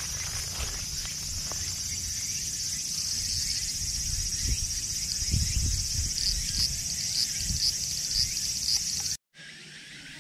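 Steady outdoor insect chorus with low rumble underneath; in the second half a run of evenly repeating chirps joins in. It all cuts off sharply about nine seconds in, leaving a quieter hiss.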